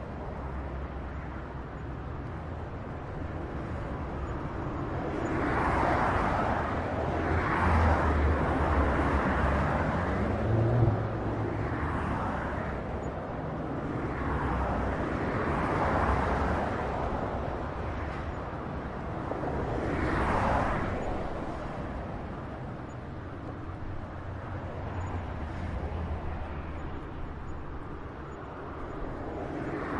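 Highway traffic: a steady rush of tyre and engine noise as vehicles pass one after another, each swelling and fading over a second or two. About ten seconds in, one vehicle's low engine note rises in pitch.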